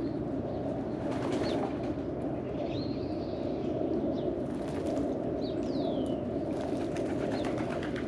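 Domestic pigeons bathing in a shallow water tray, with bursts of splashing and wing flapping about a second in and again in the second half. A steady low background noise runs under it, and a few short whistled bird calls glide up and down.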